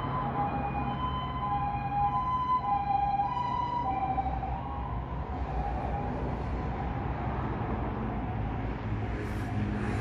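Japanese railway crossing's electronic warning bell ringing, two tones alternating in a steady ding-dong rhythm. About halfway through, the bell grows fainter under a rising hiss.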